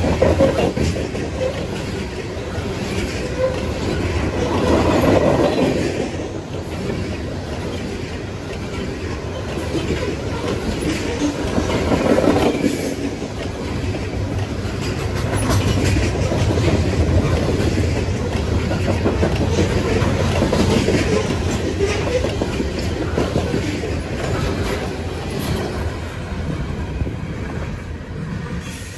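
Loaded CSX coal train's hopper cars rolling past, the wheels clicking and clattering over the rail joints in a steady rumble that swells and eases as the cars go by.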